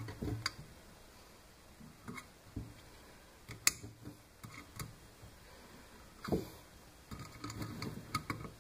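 Scattered small clicks, taps and knocks of parts and tools being handled on a wooden workbench, with one sharp click near the middle and a heavier knock about two-thirds of the way through.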